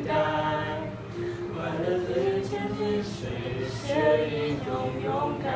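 A teenage girl singing a slow melody in held notes.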